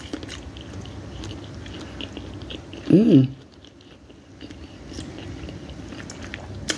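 A person chewing a mouthful of soft sautéed vegetables close to the microphone, with small wet clicks of the mouth. About three seconds in comes one short hummed "mm".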